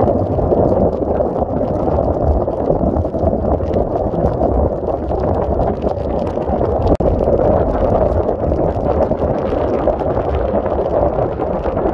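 Heavy rain falling on a moving car, mixed with the rush of tyres on the wet road and wind. It is a loud, steady, dense noise that cuts out for an instant about seven seconds in.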